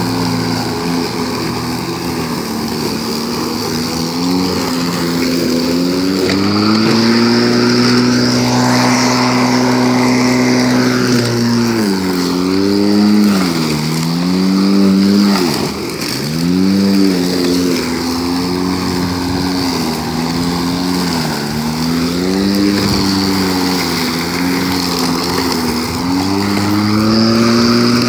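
A Homelite UT13124 20-inch corded electric lawnmower runs, its motor and blade cutting through tall grass. The motor's hum drops in pitch several times as the thick grass loads it, sagging deepest a little past halfway, and climbs back up after each dip.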